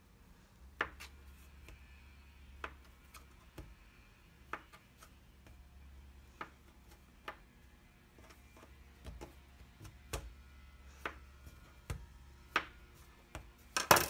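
Kitchen knife cutting through a log of soft bread dough, the blade knocking on the worktop at each cut. Short, sharp knocks come at an uneven pace, about one a second, with the loudest near the end.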